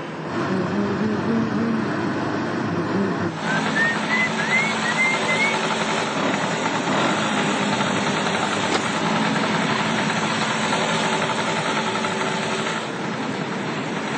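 Road vehicle engines running as a motor scooter and an old saloon car drive along the road. About four seconds in there is a string of five short rising chirps.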